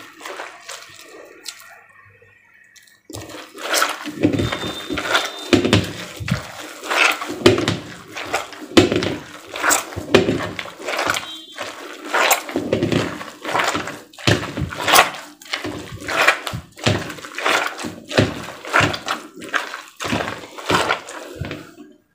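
Hands churning thick cream in a steel bowl: wet squelching and sloshing strokes, roughly one or two a second, that start in earnest about three seconds in. The cream is splitting into butter and buttermilk.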